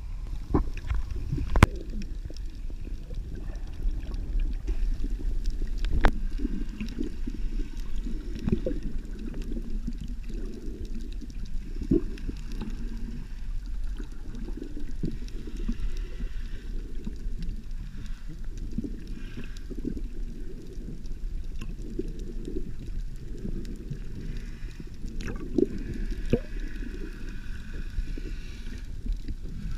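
Muffled underwater sound picked up by a camera held under the sea surface: a low rumbling gurgle of moving water, broken by a few sharp clicks and knocks.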